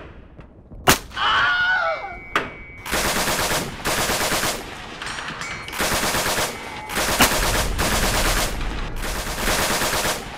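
Machine gun firing in several long bursts of about a second each, with short pauses between them, after a single sharp crack about a second in.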